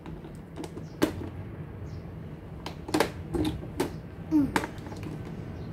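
Plastic clicks and knocks from a toy treasure chest's key lock being turned with a small key and its lid worked open: several sharp clicks, roughly a second apart.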